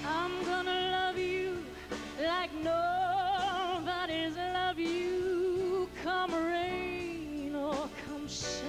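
A woman singing a slow ballad into a microphone, holding long notes with a wide vibrato, over an orchestral accompaniment.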